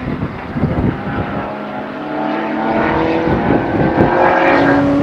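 Spec Racer Ford race car engine running hard at speed, its note shifting up and down in pitch.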